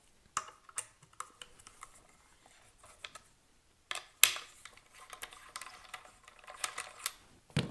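Scattered light clicks and taps of metal parts as a hex driver is worked in a screw on a 10/22 rifle chassis. A few clicks come in the first second, a sharper click about four seconds in, then runs of small clicks.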